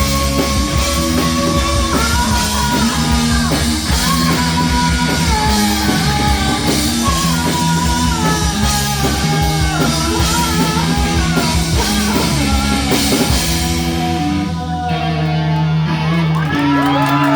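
Live rock band playing with singing, drums and guitar. About fourteen seconds in the drums and cymbals stop and a final chord rings on, as the song ends.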